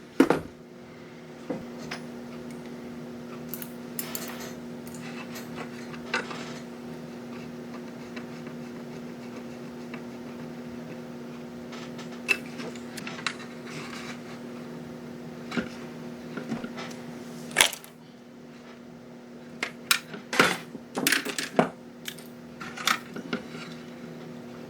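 Small motor of a fake aquarium lamp running with a steady hum, with irregular clicks and knocks over it, several close together near the end; it doesn't sound too happy.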